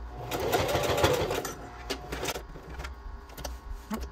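Singer sewing machine stitching steadily for about a second and a half, then stopping, followed by a few light clicks.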